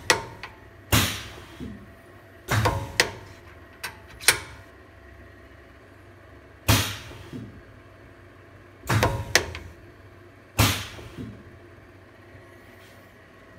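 Air-over-hydraulic power drawbar on a Grizzly G0704 mill cycling several times: short bursts of air hiss from the valve and exhaust, each with sharp clicks or pops as the cylinder pushes the drawbar down and the collet releases. The owner suspects the pop comes from the collet sticking for a moment before letting go, and that it may need a light touch of anti-seize.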